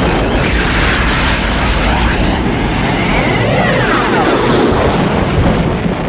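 Sci-fi sound effect of Kal-El's crystal spaceship in flight: a loud, dense rushing roar with swirling tones that sweep up and fall back about halfway through.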